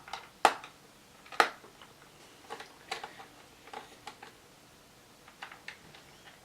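Clicks and taps from handling the plastic and metal parts of an old Sony laptop during disassembly. Two louder knocks come about half a second and a second and a half in, followed by a scatter of lighter clicks.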